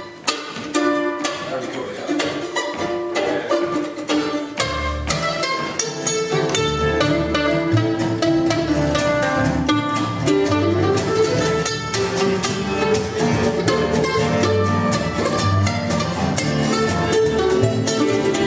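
A live bluegrass band playing, with mandolin, fiddle, acoustic guitar and upright bass. Deep upright bass notes join about four and a half seconds in.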